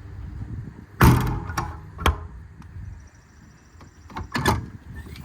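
Service-body compartment door shut with a bang about a second in, followed by two sharp latch clicks; another clatter of a door and latch comes near the end.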